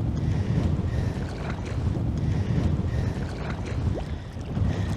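Heavy wind gusting over the microphone, a loud buffeting rumble that rises and falls, with a brief faint rising squeak about four seconds in.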